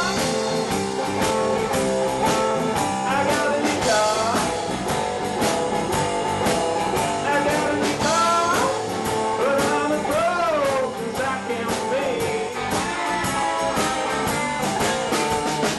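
Live blues-rock band playing an instrumental passage: electric guitar with bent notes over a steady drum-kit beat and bass.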